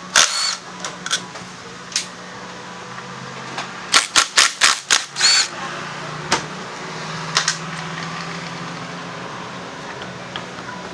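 Sharp metallic clinks and knocks of tools and parts being handled, with a quick run of five about four seconds in, over a steady low hum.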